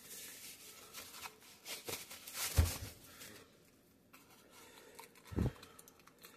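Paper wrapping rustling and crinkling as it is pulled off a rolled sheet of thin copper, with a dull handling bump about two and a half seconds in and another about five seconds in.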